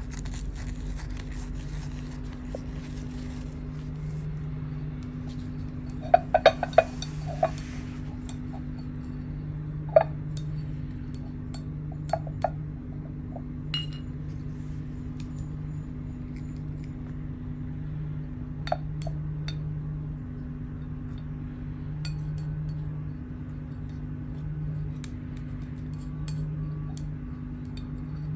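A brush clinking and tapping against ceramic palette dishes while paint is mixed: a quick cluster of clinks about six seconds in, then single taps spread out. A steady low hum runs underneath.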